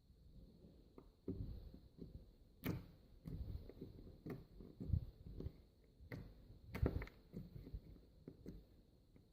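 Slime being squeezed and poked by hand, giving faint, irregular sticky clicks and soft squelches; the sharpest snaps come about 3, 5 and 7 seconds in.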